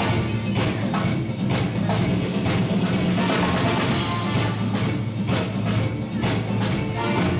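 A live dance band playing with a drum kit and bass guitar, a steady beat, and a cymbal crash about four seconds in.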